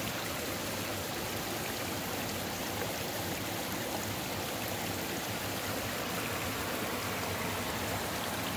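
Creek water flowing, a steady, even rush of running water.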